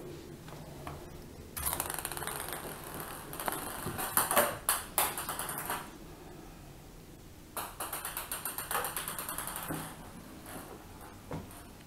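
A light plastic ping pong ball bouncing and clattering across a ceramic tile floor as kittens bat it about. It comes in two bursts of rapid ticking: one from about a second and a half in, the other near the end, a quick run of small bounces.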